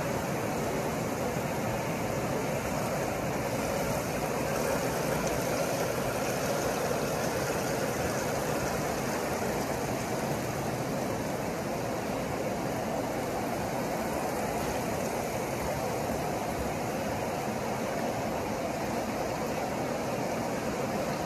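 Steady rushing ambience of an indoor swimming pool hall, like running water, with no distinct events.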